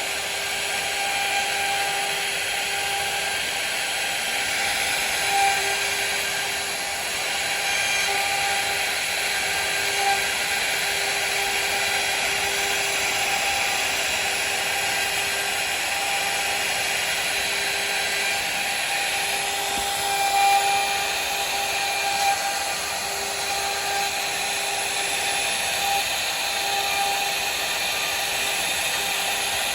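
CNC router spindle running steadily with a constant whine while a V-bit cuts into wood, with a few brief louder cutting moments.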